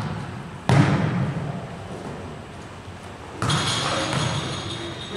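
Volleyball being struck during a rally: two sharp smacks of hand or arm on the ball, one just under a second in and another about three and a half seconds in, each ringing on in the gym's echo.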